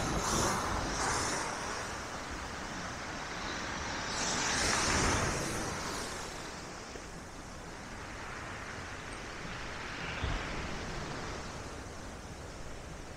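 Black Sea waves breaking and washing up the beach in the wind, a steady surf hiss that swells loudest about four to six seconds in and then eases. A short low thump about ten seconds in.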